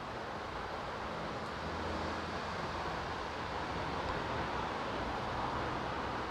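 Steady outdoor background noise from distant road traffic: an even rushing with a faint low hum, swelling slightly midway.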